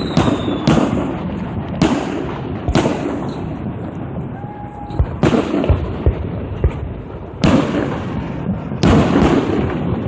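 Fireworks display: a rapid series of shell bursts, about eight or nine sharp booms in ten seconds, with crackling between them.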